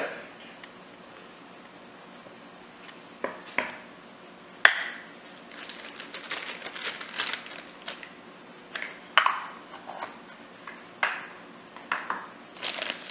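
A plastic measuring cup scooping flour from a plastic bag and knocking against a glass mixing bowl: a handful of sharp clicks and taps, the loudest about five seconds in, with the bag rustling between them.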